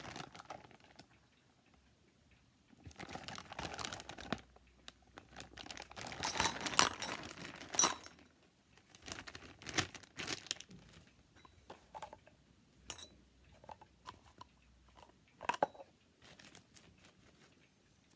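Clear plastic packaging crinkling and rustling in several bursts as the bags holding the drain parts are handled and opened, followed by a scattering of light clicks and knocks.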